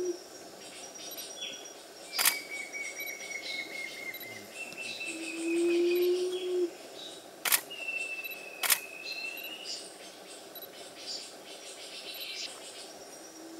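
Forest birds calling: a low hooting note about a second long near the middle and again at the very end, over thin high whistled notes and short trills. Three sharp camera-shutter clicks cut through, one early and two close together past the middle.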